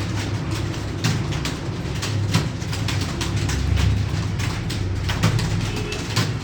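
Computer keyboard keys clicking in fast, irregular typing, over a steady low hum.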